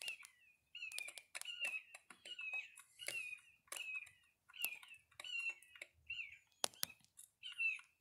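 Pileated woodpecker giving a long run of short, down-slurred calls, two or three a second, with sharp clicks mixed in.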